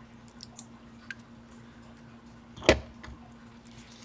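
Handling of a screwdriver and a styrofoam flower wreath on a craft table: a few faint clicks, then one sharp knock about two-thirds of the way through, over a steady low hum.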